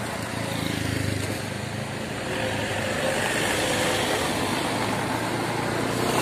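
Motor scooter passing close by, its engine swelling about a second in, followed by steady engine and road noise from vehicles on the road.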